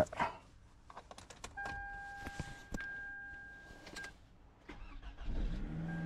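2008 Toyota Camry being started: a few clicks, the starter cranking with a steady whine for about two and a half seconds, then the engine catching and starting up near the end. The crank-no-start is cured now that the replacement engine computer is synced to the car.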